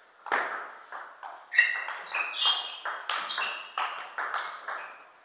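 Table tennis rally: the ball clicks back and forth off the bats and bounces on the Donic table in quick succession, about two to three hits a second, each with a short ringing ping.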